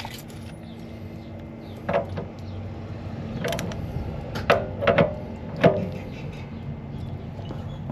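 Ratchet wrench with a 1-1/16 socket on a long extension turning a new anode rod into an RV water heater tank: a handful of sharp metal clicks and clinks from the ratchet and socket, spaced irregularly.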